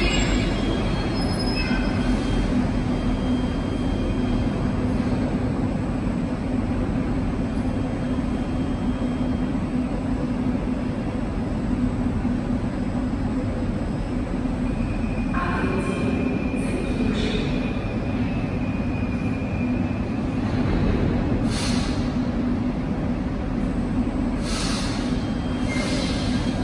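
Metro train running, a steady rumble with a low hum. A thin wheel squeal comes in about two-thirds of the way through, and a few short hissing bursts follow near the end.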